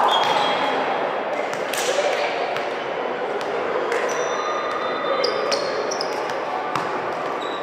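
Indoor volleyball play in a sports hall: several sharp smacks of the ball being struck, short high squeaks of shoes on the court floor, over a steady background of crowd and player voices.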